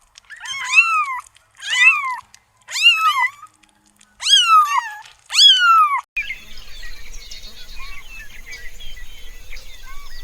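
A kitten meowing repeatedly, about five high-pitched, rising-then-falling meows. About six seconds in the meows stop and a quieter outdoor background with faint chirps takes over.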